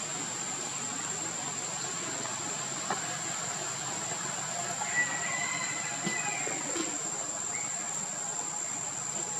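Steady outdoor background hiss with a constant high, thin whine, and a brief faint chirp about five seconds in.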